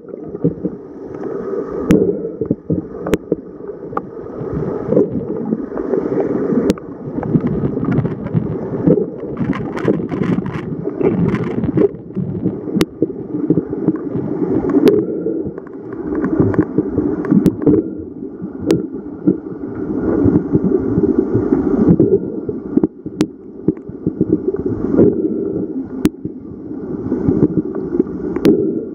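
Water noise picked up by a camera in an underwater housing moving through a swimming pool: an uneven, muffled rushing wash, with a sharp tick every few seconds.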